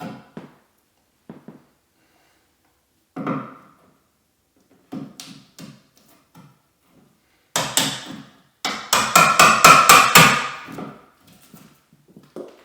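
Hammer striking wood: a few scattered knocks, then a quick run of sharp blows, about four to five a second, lasting a couple of seconds in the second half.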